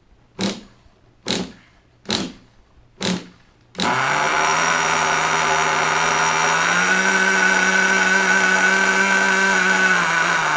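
Small nitro (glow-fuel) RC engine being cranked in four short bursts, then catching about four seconds in and running steadily at a fast idle. Its pitch rises a little about halfway through and drops slightly near the end.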